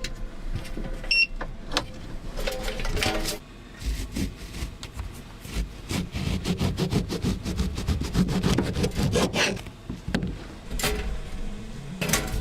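Footsteps scuffing and scraping on rocky, gravelly ground, in an irregular run of steps.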